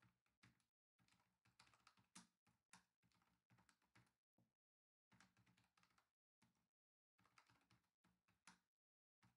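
Faint computer keyboard typing: irregular, quick keystroke clicks.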